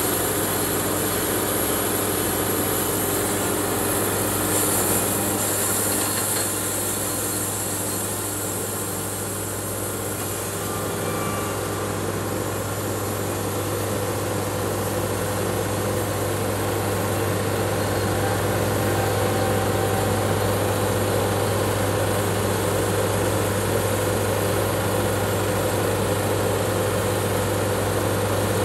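Engine-driven Wood-Mizer portable band sawmill running steadily with a constant low hum, its band blade sawing through a log and throwing sawdust. The sound grows slightly fuller in the second half as the cut goes on.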